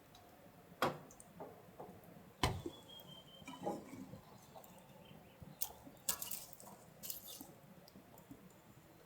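Scattered knocks and clinks of hard objects being handled, with two sharper knocks about one and two and a half seconds in and a run of light clicks near the end.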